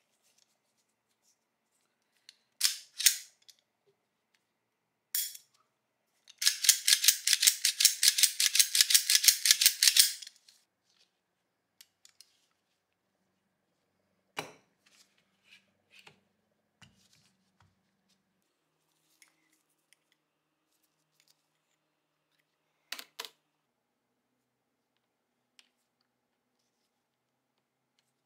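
Sharp metal clicks and clacks as the parts of a Colt Model 1903 Pocket Hammer pistol are handled and fitted back together, with a fast run of even clicks lasting about four seconds as the loudest part. A dull knock comes about halfway through, followed by scattered light ticks and a last pair of clicks near the end.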